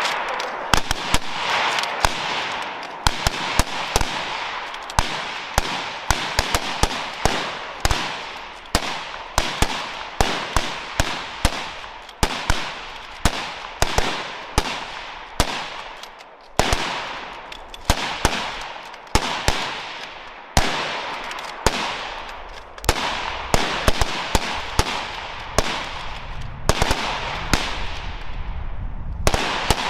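Several .303 British Lee-Enfield bolt-action rifles firing rapidly and out of step in "mad minute" rapid fire, a few shots a second, each shot followed by a short echo, with only brief lulls.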